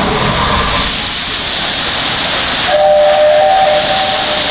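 Steam locomotive hissing loudly as steam blows from around its cylinders. About two and a half seconds in, its steam whistle joins with a steady two-note tone.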